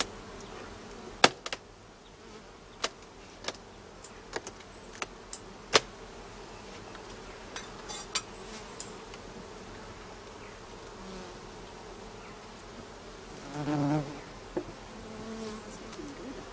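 Honeybee colony buzzing steadily in an opened hive, with a string of sharp clicks and knocks from the wooden hive parts being handled during the first eight seconds.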